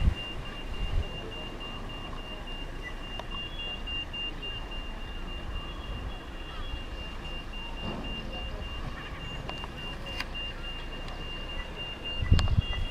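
Faint outdoor background noise with a thin, steady high-pitched tone running through it; a low rumble breaks in near the end.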